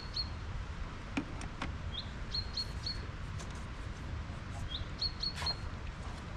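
A small bird calling a short phrase twice: a quick rising note followed by three short even high notes. A few faint clicks and a steady low rumble lie underneath.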